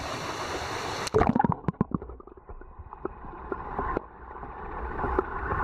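Creek water rushing over rocks, then about a second in the camera goes under the surface: the hiss cuts off and the sound turns muffled and low, with a quick run of knocks and bubbling as it goes in. After that, a dull underwater rumble of the current with a few faint taps.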